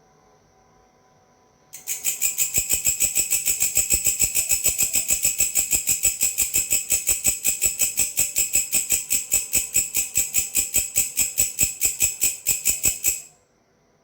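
A belalang, a singing grasshopper-type insect, calling: a fast, even train of dry, high pulses, about five a second. It starts abruptly about two seconds in and stops abruptly near the end, making a natural pause in the song.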